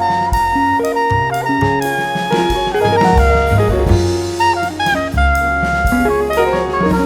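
Background jazz music: a saxophone or brass melody over a drum kit and bass.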